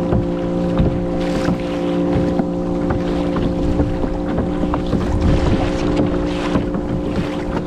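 A kayak moving through choppy sea water, with water splashing along the hull and wind on the microphone, over a steady motor hum.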